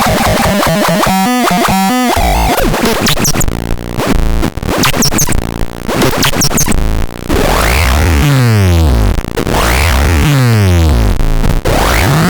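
Loud, harsh electronic noise from the TADETRALOX sound device being demonstrated: a dense, buzzing, phasing texture, with several falling pitch sweeps in the second half, roughly every second and a half.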